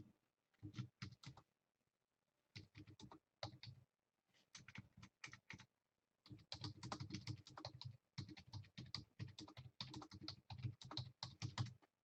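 Faint typing on a computer keyboard: short groups of keystrokes for the first few seconds, then a fast, steady run of typing from about halfway through until just before the end.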